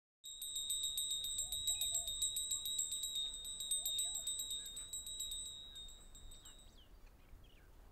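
Dusk ambience of a high insect trill, one steady tone pulsing rapidly about eight times a second, with faint bird chirps beneath. It fades out over the last few seconds.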